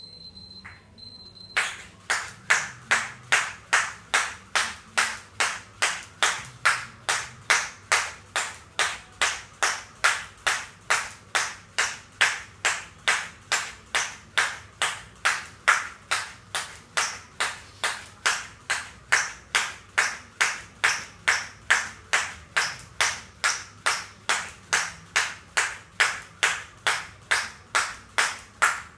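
A high electronic timer beep, twice, at the start, then a skipping rope slapping the floor on every turn, a little over twice a second in a steady rhythm, as single jumps are done.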